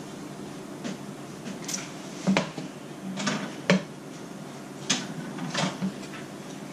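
Kitchen utensils and dishes clattering: about eight scattered light clicks and knocks, the sharpest a little past two seconds in and near the middle.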